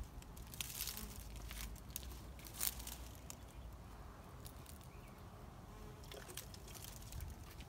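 Faint patter of water from a small plastic toy watering can falling onto flowers and leaves, over a steady low rumble, with a few brief soft ticks scattered through it.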